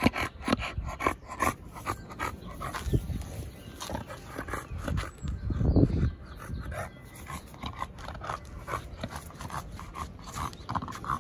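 Bully-type dog panting close to the microphone, quick rhythmic breaths about three a second, with one louder, longer noise just before six seconds in.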